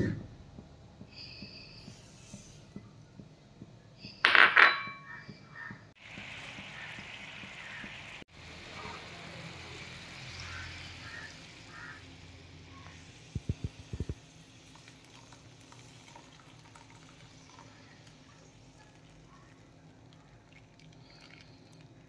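Cooking sounds at a frying pan of roasted vermicelli. A short, loud clatter about four seconds in, then several seconds of steady hiss while an ingredient is tipped in from a plastic container, a few quick light taps about halfway through, and a lower steady background to the end.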